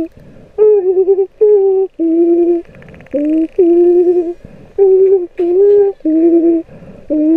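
A woman's voice singing a slow, wordless tune in held notes about half a second long, separated by short pauses; the sound is muffled, with little treble.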